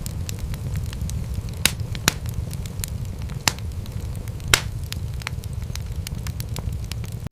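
Wood fire in a fireplace crackling: a steady low rumble of flames under a constant scatter of small clicks. Four louder pops stand out, the loudest about four and a half seconds in.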